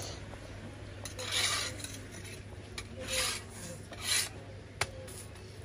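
Metal spatula scraping a flatbread across a griddle, three short scrapes spaced about a second or two apart, with a sharp tap shortly after the last.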